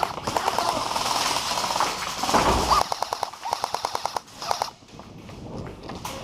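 Airsoft guns firing on full auto: rapid clattering bursts of shots, with one evenly paced burst of roughly ten shots a second that stops about three-quarters of the way through.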